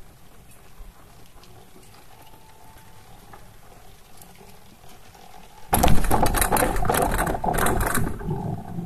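Chairlift chair passing a pylon, its cable and grip running over the tower's sheave wheels: a sudden loud rattling rumble starts about six seconds in and lasts about two and a half seconds. Before it there is a faint steady hum.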